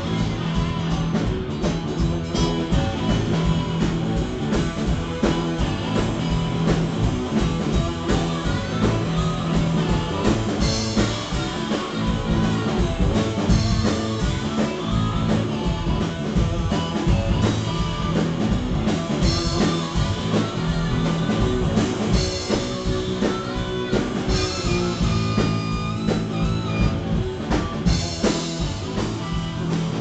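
Live rock band playing: electric guitar with bass and drum kit, steady and loud with no breaks.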